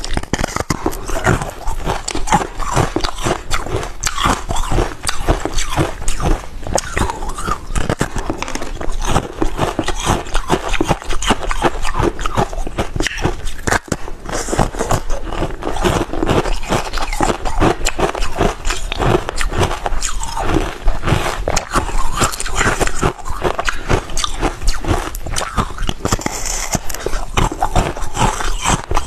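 Close-miked biting and chewing of a block of frozen basil-seed ice: dense, continuous crunching and cracking.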